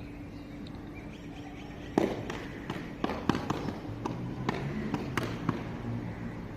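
A string of sharp knocks and slaps from a drill squad's synchronised rifle drill movements, starting with a loud one about two seconds in and following at irregular intervals for about three and a half seconds.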